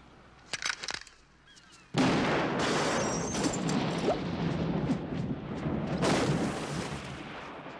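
Film sound effects of a .50-calibre rifle strike: a few sharp cracks about half a second in, then a sudden big explosion about two seconds in that rumbles on for several seconds, swelling again near six seconds.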